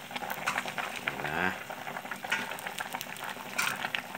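Soup boiling in an aluminium pot just after Chinese cabbage leaves were added, a steady bubbling with many small pops and crackles. A brief rising tone sounds about a second in.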